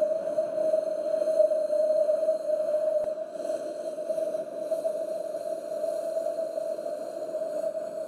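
Winter wind sound effect: wind blowing with a hollow whistle held at one pitch, swelling and easing in gusts. It turns a little quieter after about three seconds.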